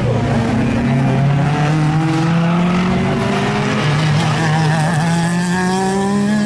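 Several circuit-racing cars passing close by under hard acceleration, their engine notes overlapping and rising steadily in pitch.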